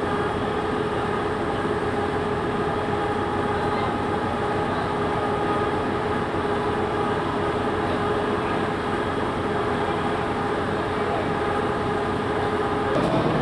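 Steady machine hum: one held tone with overtones above it, unchanging, that cuts off abruptly shortly before the end.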